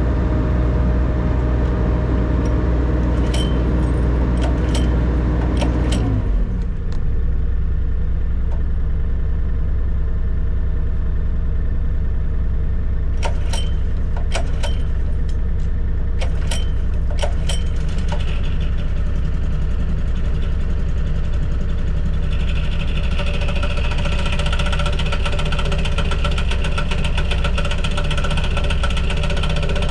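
Construction machine engines running steadily. About six seconds in, one engine's pitch drops as it throttles down. Sharp ticks come and go over the running engines.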